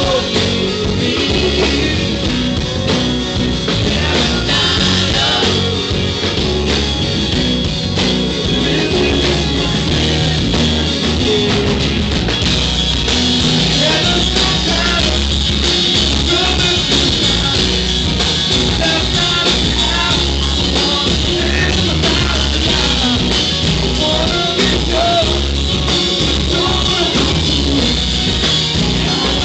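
A live band playing a pop-rock song, with a man singing over strummed acoustic guitars, steady and loud.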